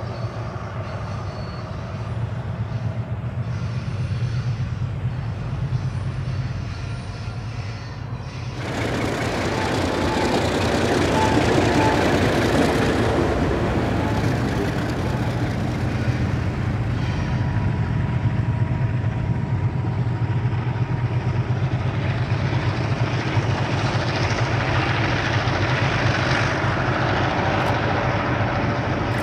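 Diesel freight locomotives working hard up a steep grade, a steady low engine drone. About eight seconds in the sound changes suddenly to a louder, rougher and closer engine noise, which settles back to a steady drone with a few faint high tones.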